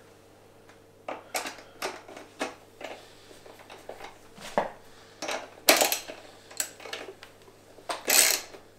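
Irregular metallic clicks and clinks of hand tools, a hex bit on an extension and a ratchet, being handled while a seat bolt is screwed back in by hand. There are two longer, louder clatters, one just past the middle and one near the end.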